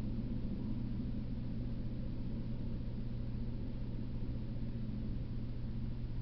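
Steady low hum over a faint background hiss, with no distinct events.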